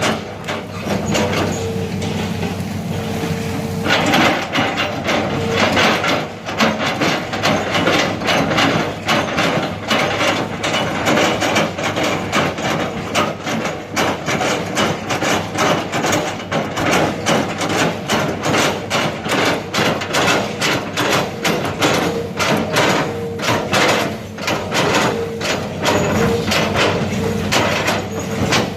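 Hitachi excavator's diesel engine running steadily under dense, irregular knocking and clattering, which thickens about four seconds in.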